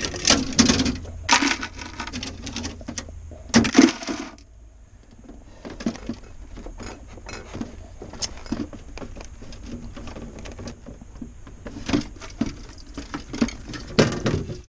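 Chunks of ice and the plastic tray of a defrosting RV refrigerator's freezer clattering and scraping as the ice is cleared out into a plastic bucket. A few loud clatters in the first four seconds, then scattered small knocks and clicks, with louder ones near the end.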